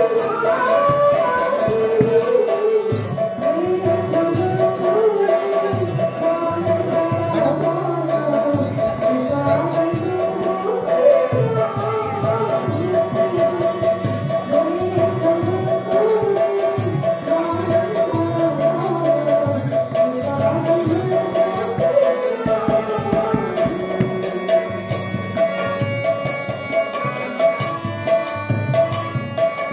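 Odia devotional bhajan: a woman sings an arching melody into a microphone over sustained harmonium chords. A hand-played barrel drum keeps a steady rhythmic beat of regular strokes.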